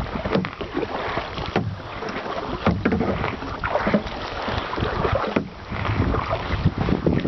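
Kayak on the move: paddle splashes and water sloshing against the hull come in irregular bursts over wind rumbling on the microphone.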